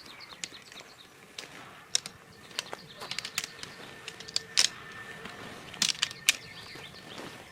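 Irregular sharp taps and clicks, sometimes several a second, with a faint steady tone in the middle.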